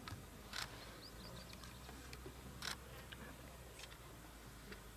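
Quiet outdoor ambience with a few faint, sharp clicks spaced a second or more apart, and a brief run of faint high chirps about a second in.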